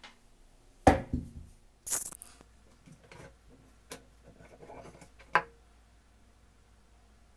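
Metal parts of an old Venusberg breast drill knocking and clicking as its gearbox is taken apart and the spindle shaft is drawn out of the housing. The loudest is a knock about a second in, then a brief scrape, softer clicks, and a sharp click about five and a half seconds in.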